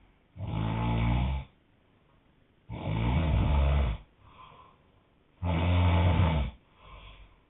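A man snoring hard: three loud, low snores, each about a second long, coming about every two and a half seconds, with a faint breath out after the second and third.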